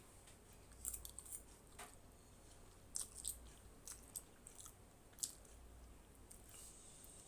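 Close-miked chewing of Maggi masala noodles: faint, soft mouth clicks and smacks in short clusters, about a second in, around three seconds and again near five seconds.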